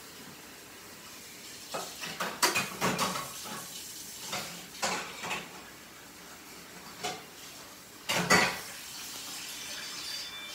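Dishes and utensils clinking and knocking in a kitchen: a run of short clatters about two seconds in, then a few more around seven and eight seconds.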